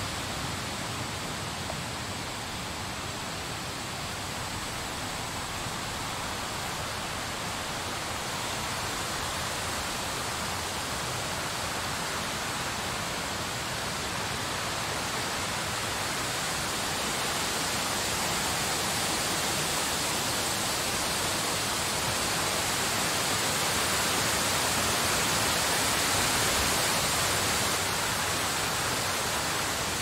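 Snowstorm wind blowing as a steady rushing hiss, swelling slightly in the second half and easing a little near the end.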